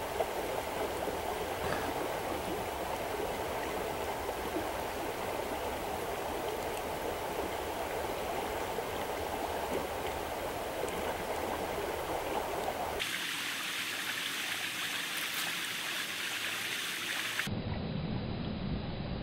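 Steady rushing of a trout stream's flowing water. Its sound changes abruptly twice, about thirteen and seventeen seconds in.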